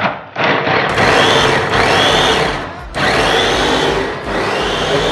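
Electric mini food chopper running on onions in about three long pulses of a second or so, the motor pitch rising and falling within each pulse.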